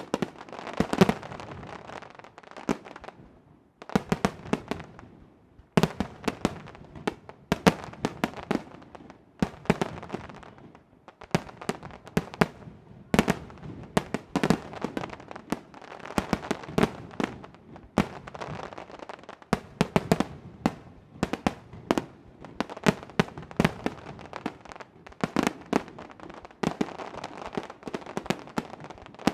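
Aerial fireworks shells bursting in quick succession, several sharp bangs a second with crackling between them, broken by a few short lulls.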